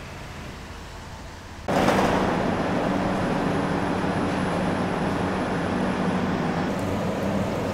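JR Central HC85 hybrid railcar standing at the platform with its engine and underfloor equipment running, a steady hum over noise. It jumps suddenly louder about a second and a half in, and a faint high whine runs through most of the rest.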